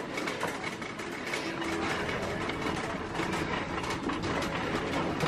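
Shopping cart being pushed, its wheels rolling and rattling over a hard store floor with a steady stream of small clatters.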